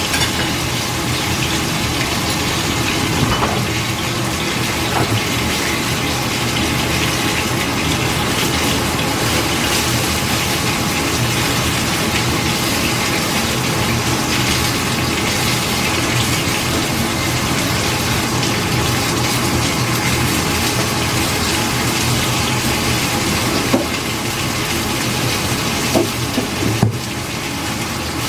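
Food cooking in liquid in a steel pan on the stove: a steady hiss with a few sharp pops near the end.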